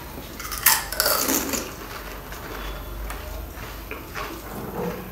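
A crisp pani puri shell crunching as it is bitten whole with its spiced water, a loud wet crunch about half a second to a second and a half in, followed by quieter chewing crackles.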